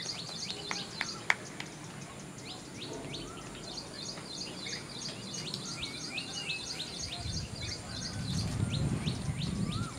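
Many small birds chirping rapidly and continuously, with short falling whistle-like calls mixed in. A single sharp knock sounds about a second in, and a low rumble builds near the end.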